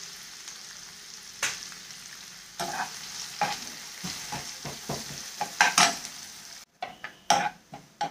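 Chopped onions sizzling in hot oil in a non-stick frying pan, stirred and scraped with a steel spoon in repeated strokes from about a second and a half in. The onions are frying down toward golden brown.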